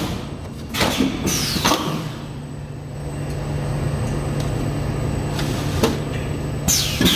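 Plastic cup-lid making machine running: a steady low hum, with quick sharp clunks and hisses about a second in and again near the end, like a press or pneumatic stroke of its cycle.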